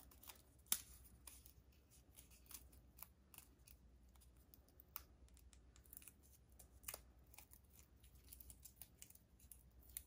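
Faint, scattered clicks and crinkles of stiff cardstock being handled: die-cut letters being worked out of a strip of yellow cardstock backed with foam adhesive. The sharpest click comes about a second in.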